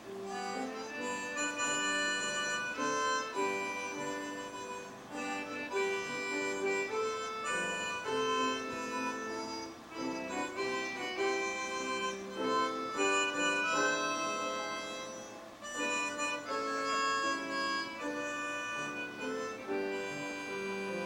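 Instrumental music without singing: a melody played in held, chorded notes that change about every half second.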